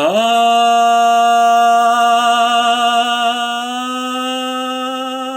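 A man singing one long held note as a quick voice test while his throat is troubled; he scoops up into the pitch at the start, then holds it steady with a slight waver.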